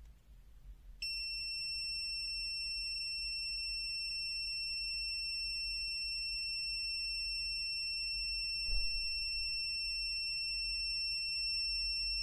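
YEUDA YD21 multimeter's built-in buzzer sounding one continuous high beep, switching on about a second in and holding steady: the meter's low-resistance (under about 30 ohm) continuity signal while its leads are across a fraction-of-an-ohm resistor. A faint knock about nine seconds in.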